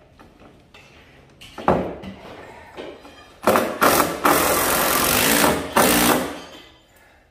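Cordless power driver running in bursts, driving a screw through a wooden brace into the workbench frame: a short run about a second and a half in, then a longer, louder run from about three and a half to six seconds.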